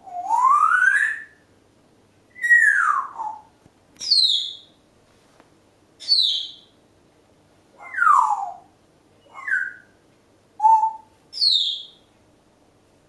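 Congo African grey parrot whistling a string of about eight clear single-note whistles, each a glide in pitch. The first swoops up, most slide down, and the highest few are short and sharp.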